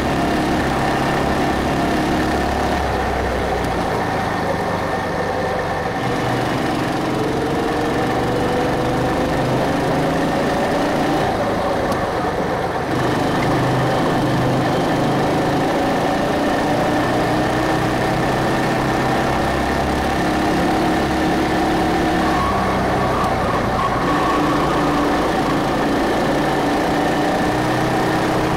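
Go-kart's small single-cylinder petrol engine running at speed. Its pitch slowly rises and falls several times as the kart accelerates and eases off through the track's curves.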